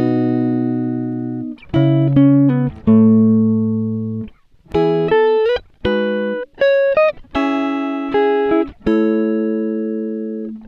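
Background music: a clean guitar playing a slow melody of single plucked notes, each held and fading.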